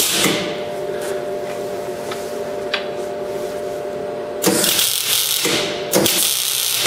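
MIG welder tack-welding steel pegs onto a bracket: bursts of arc crackle and sizzle, a short one at the start and two longer ones near the end, over a steady hum.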